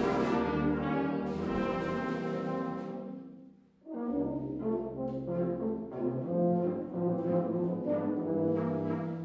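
Brass and wind band playing. The music dies away about three and a half seconds in, then after a brief break the band comes back in with a run of short, detached notes.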